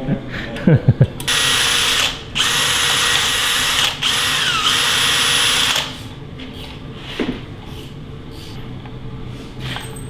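Cordless drill running in three bursts with a steady high whine, its pitch dropping as the last burst winds down.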